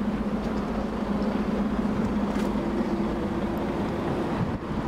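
A steady low mechanical hum over outdoor noise, with a second, higher tone joining about two and a half seconds in.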